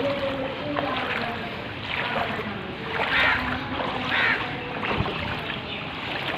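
Rushing floodwater: a steady wash of water noise that surges briefly a few times, with a short pitched sound near the start.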